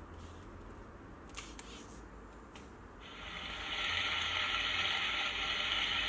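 A recorded mechanical garden sound played from a children's touch-and-hear sound book's speaker: a steady ratcheting, whirring noise that starts about three seconds in and swells over a second, after a soft click or two.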